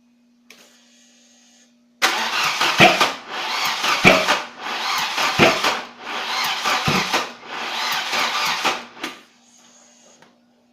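Volvo 740 engine being cranked by its starter for about seven seconds without catching, then cut off abruptly. The car has a no-start fault.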